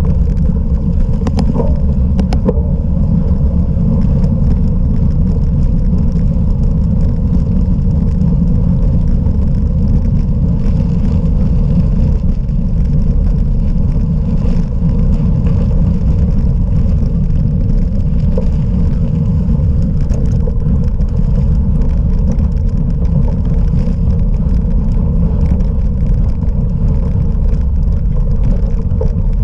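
Steady low rumble of wind buffeting and tyre noise from a bicycle ridden off-road on a cyclocross course, with a few faint ticks about two seconds in.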